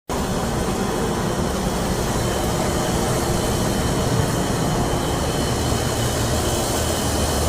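LG package air-conditioning units running: steady fan and compressor noise with a low hum and a faint high whine.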